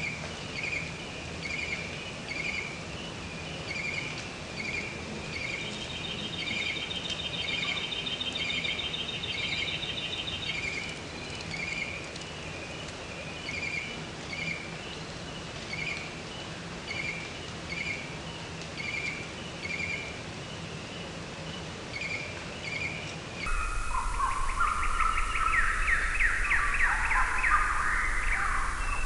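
Outdoor wildlife ambience. First a high chirp repeats evenly, about one and a half times a second, with a rapid trill joining it about six seconds in for some four seconds. At a cut near the end this gives way to louder, varied birdsong over a low rumble.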